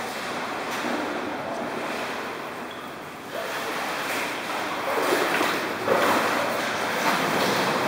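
Steady rushing noise, louder from about three seconds in, with a sharp bump about six seconds in.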